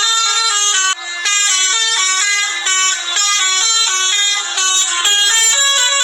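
A bus's basuri 'telolet' multi-tone horn playing a fast tune, a string of short stepped notes each held a fraction of a second, with a brief break about a second in.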